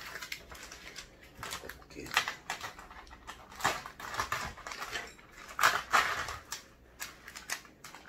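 Plastic wrapping crinkling and rustling as it is peeled off a takeout tteokbokki container by hand, in irregular bursts of crackles, the loudest a little past the middle.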